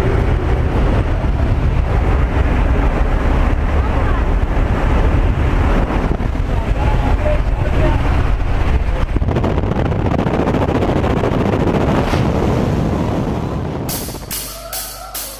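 Loud, steady rumble of a jump plane's engine and wind inside the cabin, with the door open, picked up by a helmet or hand camera. Near the end it drops away and music with a regular beat comes in.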